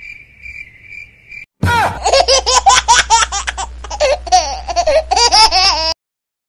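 A cricket chirping sound effect, a high tone pulsing about twice a second. About a second and a half in, loud high-pitched laughter breaks in and cuts off suddenly near the end.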